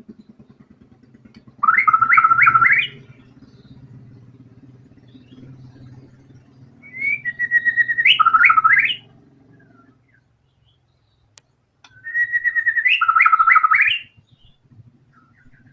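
White-rumped shama (murai batu) singing three loud phrases, each a quick run of four or five repeated notes that sweep up. These are part of its repertoire of mimicked song. A faint low hum lies underneath and stops about ten seconds in.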